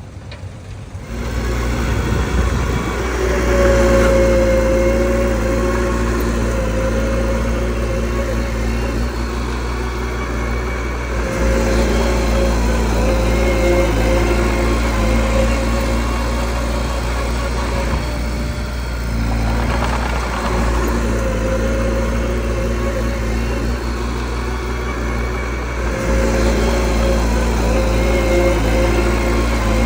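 Mini bulldozer's diesel engine running under load, getting louder about a second in, with a high whine that rises and fades in stretches as it works.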